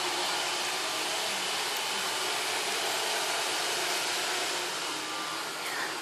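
Roomba robot vacuum running: a steady rushing noise that eases slightly near the end.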